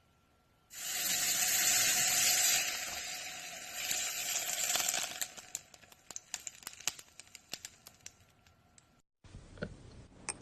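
Slime being squeezed and worked by hand: a dense crackling hiss that thins out after about four seconds into scattered sticky pops and clicks, then stops abruptly.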